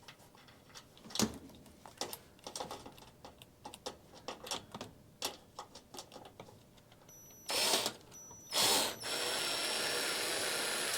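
Light clicks and taps of metal being handled, then a drill driving a screw into sheet-metal stovepipe: two short bursts, then a steady run of about two seconds with a thin high whine near the end.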